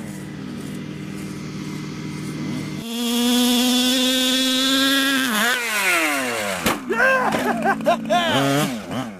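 Small two-stroke engine of a 1/5-scale FG RC monster truck, a 26cc Zenoah, running at a steady high buzz, quieter at first. From about halfway in it revs up and down rapidly over and over as the throttle is blipped.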